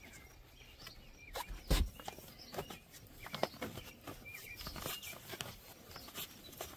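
Handling noise from a baby carrier's straps being worked: scattered rustles and clicks, with one sharper knock a little under two seconds in. Faint bird chirps in the background.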